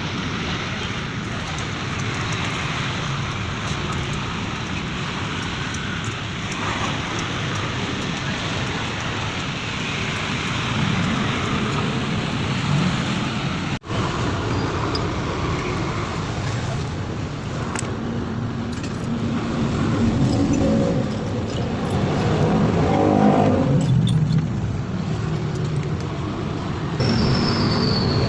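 Motor vehicle noise like road traffic, with engines passing and swelling louder in the second half; the sound cuts out for an instant about halfway through.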